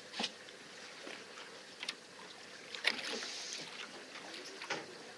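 Faint sounds of a small fishing boat drifting at sea: water lapping against the hull, with a few light clicks and a brief hiss about three seconds in.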